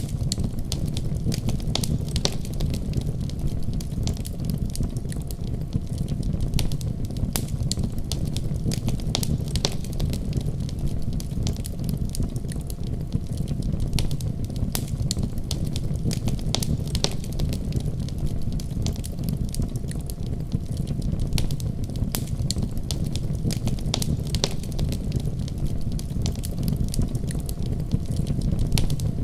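Firewood burning in a wood stove: a steady low rumble of the flames with frequent sharp crackles and pops, irregularly spaced.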